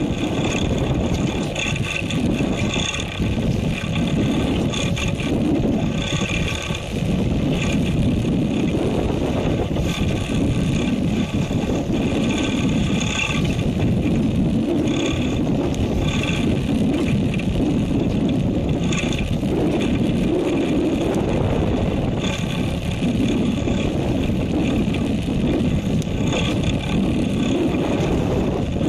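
A fishing boat's engine running steadily under wind and sea noise, with a high whine that comes and goes every second or two.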